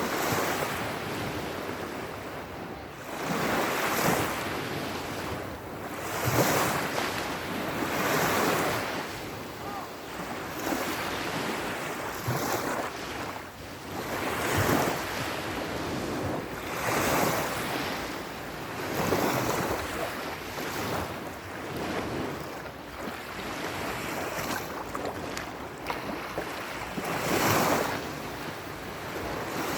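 Sea surf: waves break and wash ashore in repeated swells every two to three seconds, a steady rushing noise that rises and falls.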